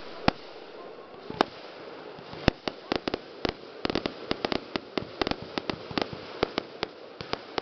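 Aerial fireworks bursting: a few single sharp bangs spaced about a second apart, then from about three seconds in a rapid, uneven run of many cracks and bangs in quick succession.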